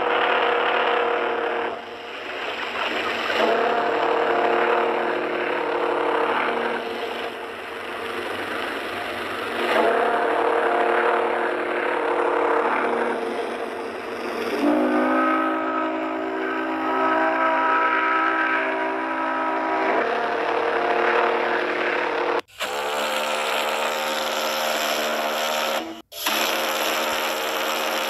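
RMS Olympic's triple-chime steam whistle sounding a series of long blasts, each a chord of several notes lasting a few seconds, over a steady hiss. Several recordings are spliced together, with abrupt breaks twice near the end.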